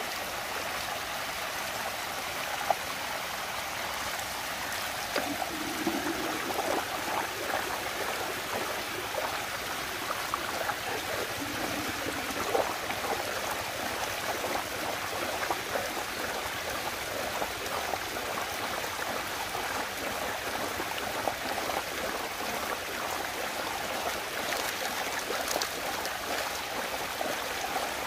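Water rushing steadily round and down a whirlpool vortex, with scattered small splashes and ticks.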